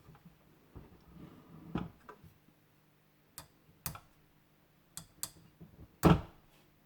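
Handling of a 1:18 diecast model car: soft rustling, then a few sharp separate clicks and taps, with a louder knock about six seconds in.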